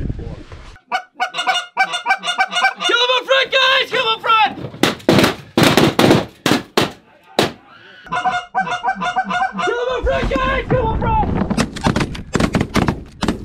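Canada geese honking in repeated runs of calls, broken by a cluster of sharp cracks in the middle and shotgun shots near the end.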